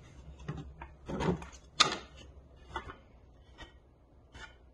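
Wooden boards and offcuts knocking against each other as pieces in a pile of lumber are shifted: about seven separate knocks, the loudest a little under two seconds in.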